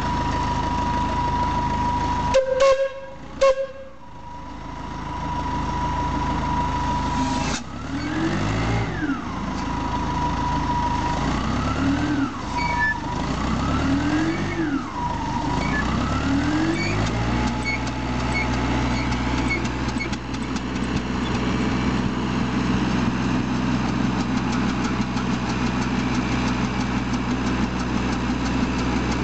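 About 1915 Robb 10 x 10 horizontal steam engine run on compressed air from a compressor. Two short loud blasts near the start, then the engine's pitch climbs and drops four times as its speed surges up and down, before it settles into a steady run with a low, even beat.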